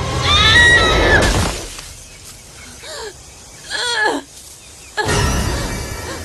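High, wavering screams over a loud crash-like noise, then two short cries that fall in pitch, and another loud noisy burst near the end.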